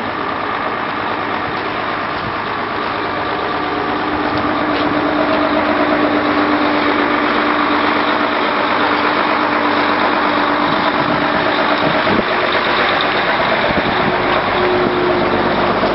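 A motor or engine running steadily, growing somewhat louder about five seconds in.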